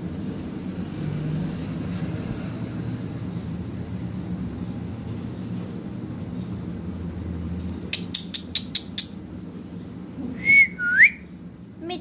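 Parakeet whistling twice near the end, a short level whistle then one that dips and rises, after a quick run of about six sharp clicks. A steady low hum runs underneath.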